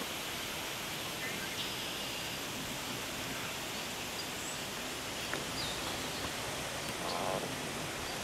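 Steady outdoor background noise, an even hiss, with a few faint high bird chirps.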